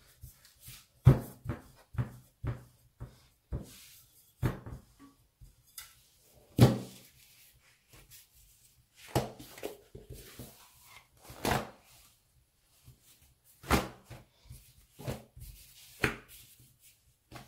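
Irregular soft thumps and knocks of hands pressing, lifting and folding a thin sheet of rolled-out bread dough on a cloth-covered table, the loudest about a second in and again about six and a half seconds in.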